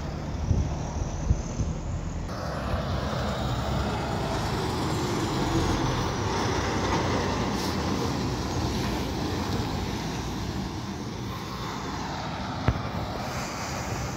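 Loaded semi-trucks driving past: a log truck with a trailer, then a flatbed semi carrying lumber, giving a steady low rumble of diesel engine and tyre noise. A single sharp click comes near the end.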